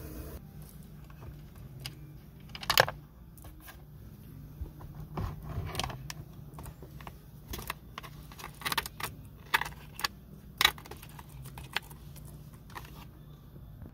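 Scattered light clicks, taps and clatter of plastic and metal parts being handled at a car's bare steering column, with the loudest knock about three seconds in. A faint low hum runs underneath.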